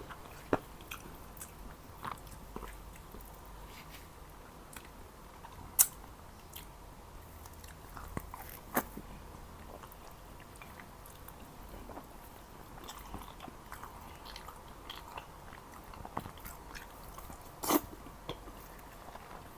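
Chewing and biting of Jordanian mansaf (lamb and rice in a yogurt sauce), with soft wet mouth clicks and a few sharper, louder clicks. The loudest come about six seconds in and again near the end.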